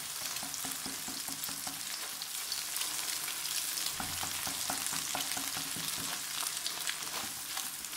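Egg and chopped garlic frying in oil in a non-stick wok, sizzling with steady crackles, while a silicone spatula stirs and scrapes to scramble the egg.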